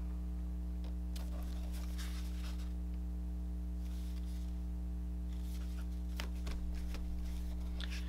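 Steady low electrical hum, with a few faint taps and rustles of card stock being pressed down and handled.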